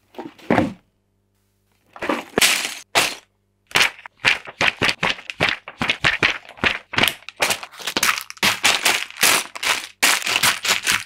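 Unboxing a brick-built model kit: a cardboard box and instruction booklet handled, then clear plastic bags of building bricks crinkling and rustling as hands spread and press them. A few sharp handling sounds at the start, then a dense run of crackling from about four seconds in.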